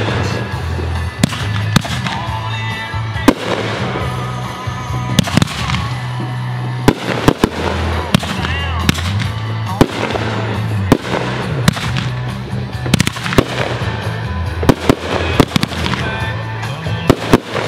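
Aerial firework shells bursting in quick succession, a sharp bang more than once a second.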